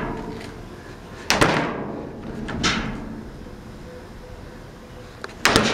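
Knocks and bangs inside a metal dumpster as trash is handled. There is a sharp bang about a second in, a lighter knock midway and a louder cluster of bangs near the end, each ringing out briefly.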